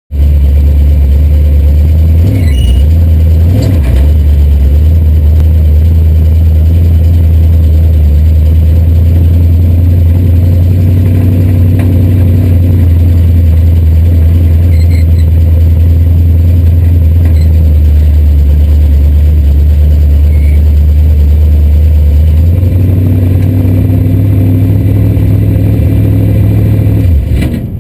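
355 crate V8 of an IMCA sport modified idling loudly, heard from inside the cockpit. Its pitch lifts slightly about three-quarters of the way through. The engine cuts off just before the end.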